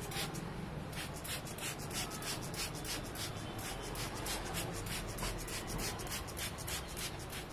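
Long hair of a mannequin training head being wetted and worked by hand: a quick, even run of short scratchy strokes, about four to five a second.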